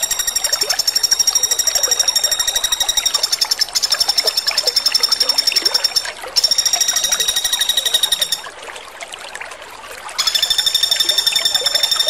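Common flameback woodpecker giving its fast, rattling trill of high, evenly spaced notes in runs of two to four seconds, with short breaks and one longer pause about eight seconds in where only a hiss is left.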